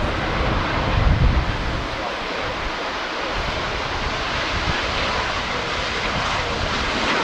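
Airbus A350's Rolls-Royce Trent XWB jet engines heard across the airfield as a steady broad rush, with wind buffeting the microphone in the first couple of seconds.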